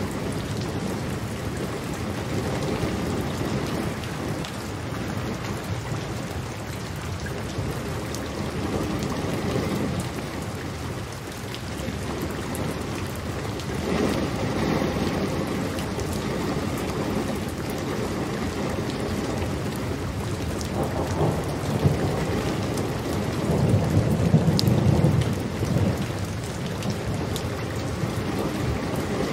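Steady rain falling, with low rolling thunder rumbles, a short one about midway and a longer, louder one near the end.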